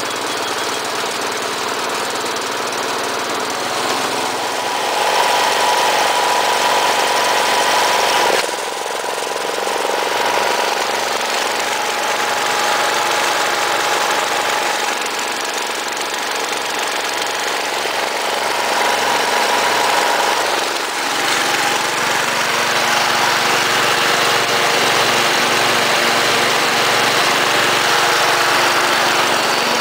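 Cub Cadet 127 garden tractor's single-cylinder Kohler engine running steadily with a fast, even chug. The sound breaks off and jumps abruptly twice, about a third and two-thirds of the way through.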